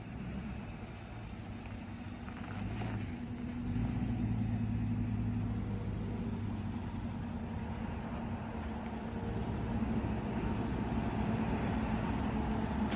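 A motor vehicle's engine running steadily, growing louder about four seconds in.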